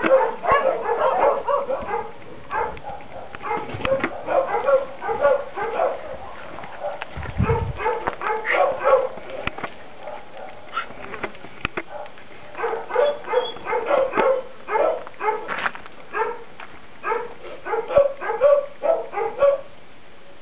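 Dog yapping in quick runs of short barks, several a second, with pauses of a second or two between the runs.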